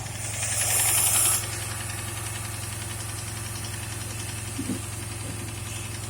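2008 Dodge Charger engine idling steadily with a fast, even ticking whose cause the owner can't identify; the engine is throwing a vacuum-leak code. About half a second in, a brief burst of hiss lasting about a second.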